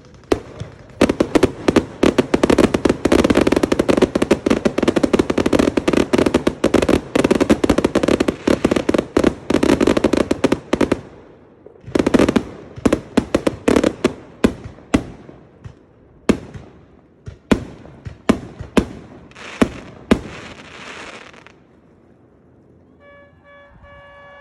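Fireworks going off: a long run of rapid crackling pops for about ten seconds, a second shorter burst of crackling, then single sharp pops that thin out and stop.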